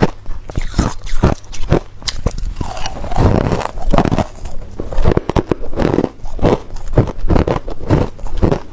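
Hard ice being chewed close to the microphone: a quick run of loud, sharp crunches, about two or three a second, with a denser grinding stretch about three seconds in.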